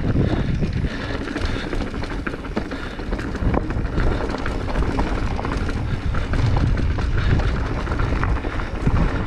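Mountain bike rolling fast down a rocky, loose-gravel singletrack. The tyres crunch over stones and the bike rattles with many small clicks, under steady wind buffeting the camera microphone.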